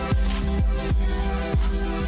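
Electronic background music: deep kick-drum hits that drop in pitch, repeating every half second or so, over sustained synth tones.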